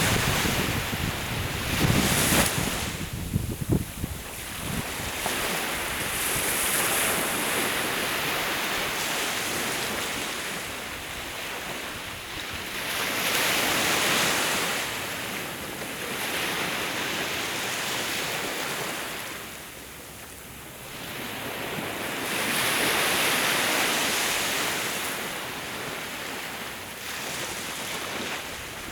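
Sea waves breaking and washing ashore, the surf swelling and fading every several seconds. Wind buffets the microphone in the first few seconds.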